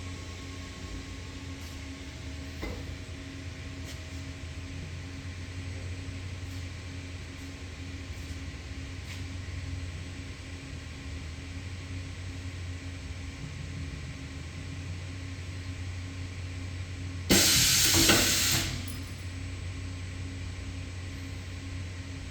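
Steady machinery hum in a workshop, with a loud burst of hissing, like compressed air being released, lasting about a second and a half near the end.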